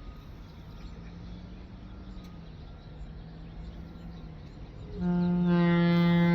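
Leslie A-200 locomotive air horn blown on compressed air, starting suddenly about five seconds in and holding a loud, steady, multi-note blast; the owners believe this horn is out of tune. Before it, only a faint low hum.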